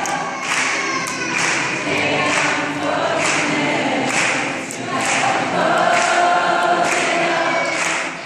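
A large crowd chanting together in unison in a steady rhythm.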